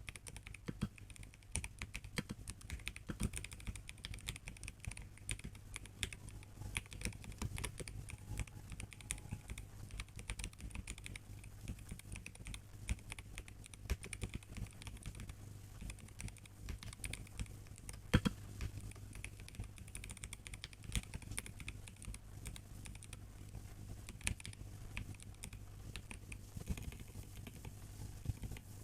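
Continuous typing on a MelGeek Mojo84 mechanical keyboard with tactile brown switches in its plastic case: a steady stream of key clicks, with one sharper, louder clack about 18 seconds in.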